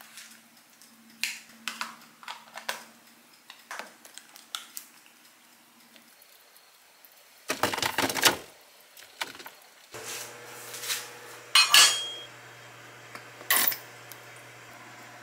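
Kitchen handling noises: plastic food-storage containers clicking and knocking as they are stacked in a freezer, then cookware and a plastic oil bottle handled on a gas stove. A low steady hum comes in about two-thirds of the way through.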